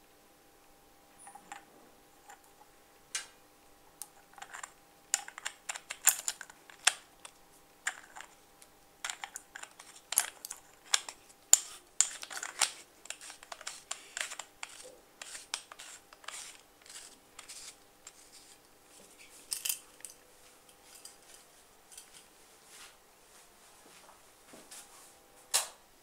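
Irregular clicks, taps and small scrapes of a cylindrical battery being handled and fitted into an LED flashlight's body and cap, with a single louder click near the end.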